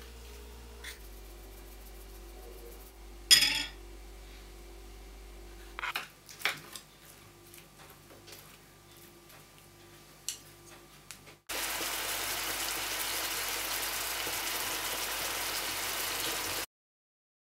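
A few sharp clinks and taps of kitchen utensils on dishes, the loudest a little over three seconds in. Later, pork slices sizzling steadily in a frying pan, cutting off suddenly near the end.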